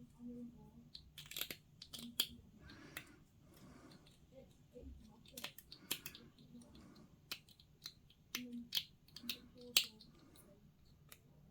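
Hobby sprue cutters snipping plastic miniature parts off the sprue: a string of sharp irregular clicks, with soft scraping and rustling of the plastic being handled between them.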